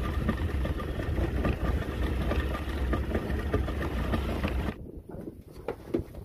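A small fishing boat's engine running steadily under way, with wind and water rushing past. It cuts off suddenly near the end, leaving a quieter background with a few light knocks.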